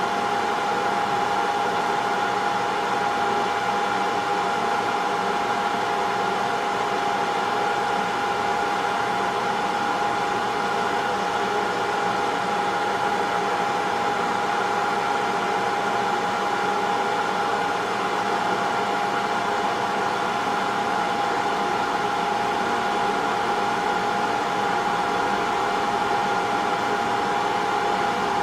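Hot-air rework machine's blower running steadily with a constant fan whine, heating the board to desolder an HDMI port.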